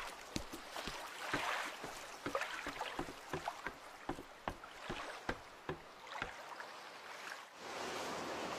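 Water sloshing and lapping with an irregular string of light knocks and clicks, like a small boat or wood moving on water. About seven and a half seconds in, this gives way to a steady wash of waves.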